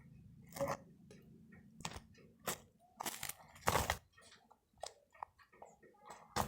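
A person chewing and biting crunchy deep-fried gorengan snacks: a string of irregular crunches, loudest about three to four seconds in.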